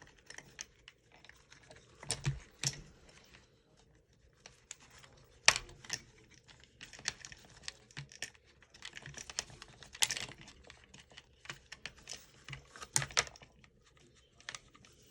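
Handling noise from an airsoft rifle being taken apart by hand: irregular small clicks, taps and scrapes of plastic and metal parts, with a few sharper knocks.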